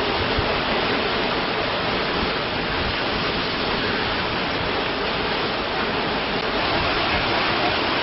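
Hurricane-force wind driving heavy rain: a loud, steady rushing noise.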